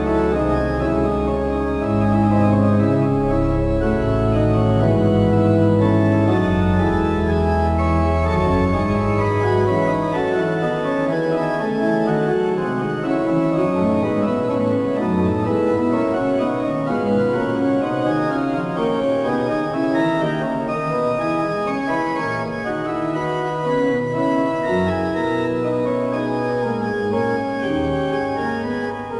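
Organ music: slow, held chords over a deep bass line. About ten seconds in the bass falls away and the upper voices carry on, moving from note to note.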